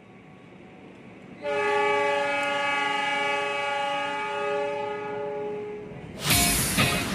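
Locomotive air horn sounding one long blast of several notes at once, starting about a second and a half in: the departure signal as the train leaves the platform. Background music with a beat starts near the end.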